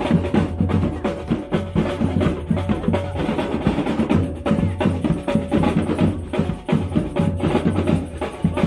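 Percussion music led by drums, a busy rhythm of many strokes a second that keeps going without a break.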